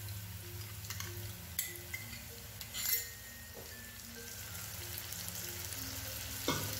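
Sliced onions sizzling steadily in hot mustard oil in a nonstick frying pan, with a few clicks and a louder scrape about three seconds in as wet masala paste is spooned into the pan.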